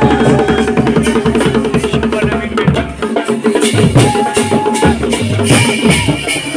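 Choliya dance drumming: a dhol barrel drum and a damau kettle drum beaten with sticks in a fast, dense rhythm. For the first two seconds or so a held pitched note sounds over the drums.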